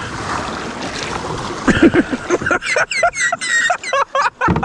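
Rushing, splashing water around a canoe running a stretch of rapids. About halfway through, the paddlers break into loud, wordless shouts and exclamations.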